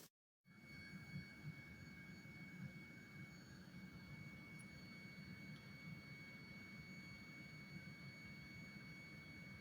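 Near silence: a faint low rumble with a thin, steady high-pitched tone, after a brief total dropout right at the start.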